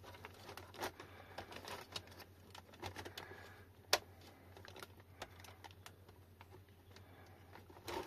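Faint, scattered small clicks and handling noises of hard plastic parts as fingers work a lock barrel and small screws into an e-bike battery case, with one sharper click about four seconds in.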